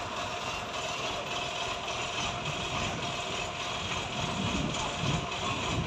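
Mitsubishi Fuso truck's diesel engine idling steadily.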